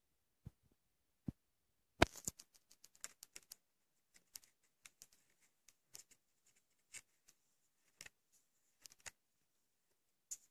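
Faint scattered clicks and taps of fingers handling a plastic VHS clamshell case, with a quick flurry of them about two seconds in and sparser single ticks after.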